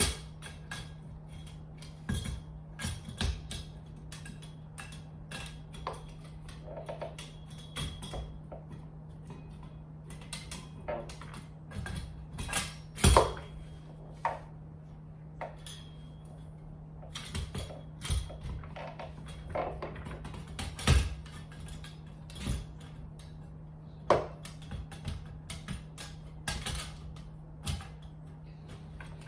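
Metal parts of a sewing mannequin's stand being handled and fitted together: irregular clicks, clinks and knocks from the poles, pedal and screws, two of them much louder about 13 and 21 seconds in. A steady low hum runs underneath.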